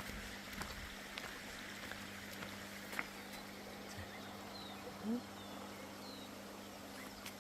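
Steady hiss of a river flowing, with a few faint short bird chirps now and then. A brief, louder rising sound comes about five seconds in.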